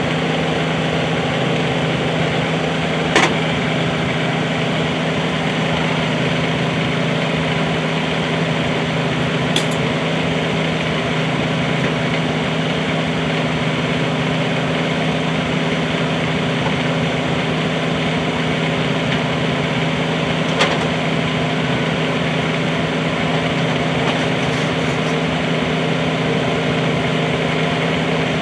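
Bobcat 320 mini excavator's diesel engine running steadily, with a few faint clicks about 3, 10 and 21 seconds in.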